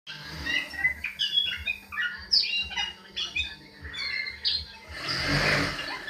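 Hill myna (ciung) calling loudly: a quick string of short whistles and squawky notes, with a harsh, rasping call about five seconds in.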